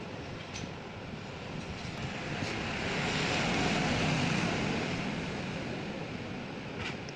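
Rushing engine-and-air noise of a vehicle passing by, swelling to a peak midway and fading again, with a couple of light clicks.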